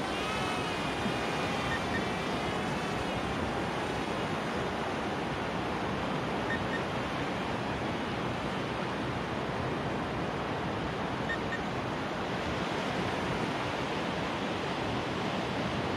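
Ocean surf washing steadily on the beach. The faint wavering whine of a small drone's motors fades out in the first couple of seconds as it flies away.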